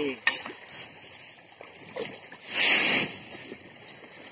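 Dry grain scooped with a metal plate and poured into a woven plastic sack: a pour of about half a second a little past the middle, with shorter rustles of the sack before it.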